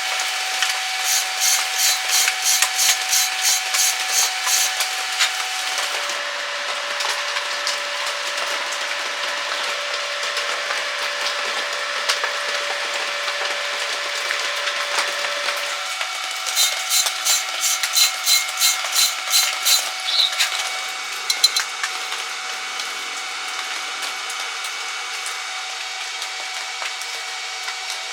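Electric arc welding: a steady crackling hiss that pulses about three times a second in two stretches, once near the start and again about two-thirds of the way through.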